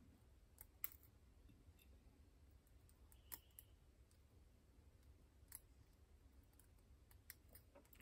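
Faint, irregular light metallic clicks as tweezers pick the pin springs out of the chambers of a lock cylinder housing, about seven or eight ticks scattered through otherwise near silence.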